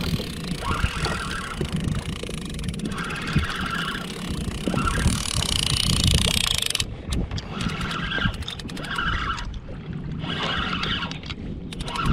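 Wind buffeting the microphone and small waves slapping against a plastic fishing kayak's hull, with recurring swishes every second or two.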